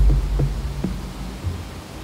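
Slow electronic background music: a deep bass hit at the start dies away, followed by a few softer low notes, over a steady hiss.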